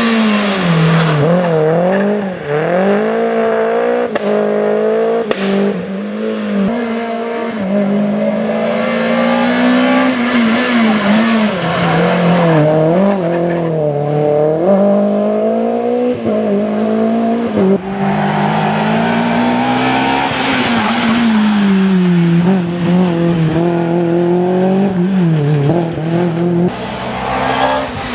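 Renault Clio Williams rally car's 2.0-litre four-cylinder engine run flat out, its pitch climbing and dropping again and again through gear changes. It is heard as a string of short passes cut together, with a sudden change of sound every several seconds.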